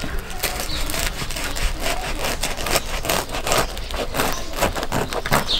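A kitchen knife sawing back and forth through the hard crust of a large wood-oven-baked loaf of homemade bread on a wooden cutting board, in quick repeated strokes of about three a second.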